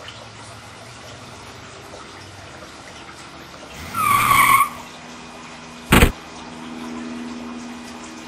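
A brief squeal lasting about a second, bending in pitch, about four seconds in; a sharp thump about two seconds later; then a low steady hum, all over a faint steady hiss.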